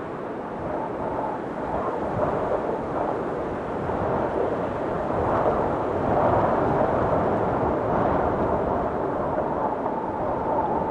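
Storm wind blowing hard in gusts, swelling about halfway through, with a thin whistling tone near the end.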